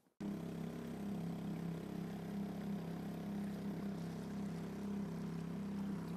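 Boat outboard motor running at a steady pitch as the boat moves at speed, with water rushing along the hull. It cuts in suddenly just after the start.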